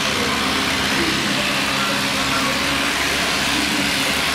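Vintage farm tractor engine running steadily at an even pitch while pulling a weight-transfer sled at low speed.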